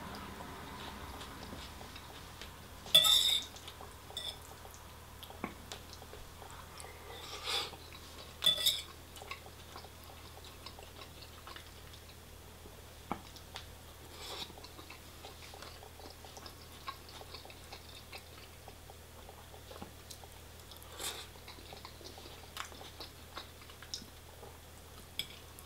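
A person eating with cutlery: quiet chewing, with scattered sharp clinks of cutlery on a plate or takeaway container, the loudest about three seconds in. A low steady hum runs underneath.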